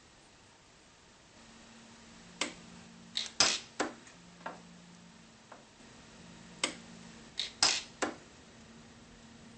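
Precision pulse-arc welder firing short weld pulses onto fine filament parts: sharp snapping clicks in two clusters of about four to five each, over a low machine hum.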